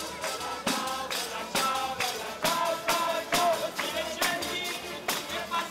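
Street musicians playing a lively tune on accordion over a sharp percussion beat of about two strokes a second.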